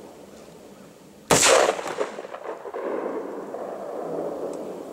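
A single sharp, loud blast about a second in, from a rifle shot at an exploding target, trailing off in a rumbling echo over the next couple of seconds.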